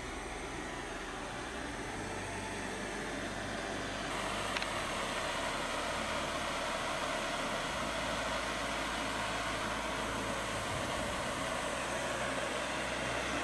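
Kitchen blowtorch flame running with a steady hiss while caramelizing the sugar topping of a crème brûlée; it grows slightly louder about four seconds in.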